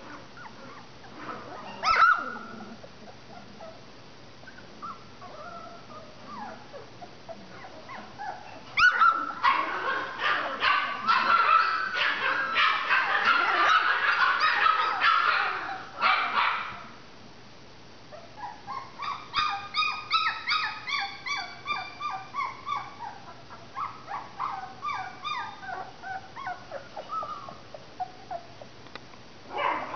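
Three-week-old Labradoodle puppies whimpering, squealing and yipping. A single sharp yelp about two seconds in, a loud stretch of many overlapping high-pitched cries in the middle, then a run of short, quick whimpers, several a second, toward the end.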